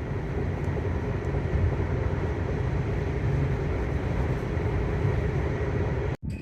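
Steady road and wind noise of an electric car cruising on the highway, heard inside the car, with a low rumble and a faint steady hum. It cuts off abruptly near the end.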